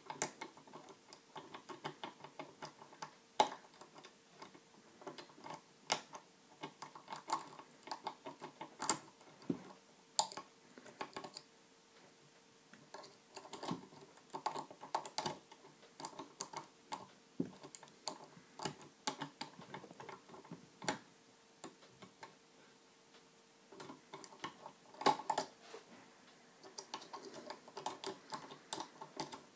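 Picking a 50 mm pin-tumbler padlock with a tension wrench and a spearhead pick. Irregular small metallic clicks and scraping come as the pins are jiggled and levered into place, with a few sharper clicks and two short lulls.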